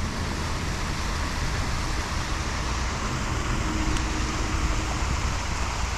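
Steady rushing noise of flowing river water, even and unbroken, with a low rumble underneath.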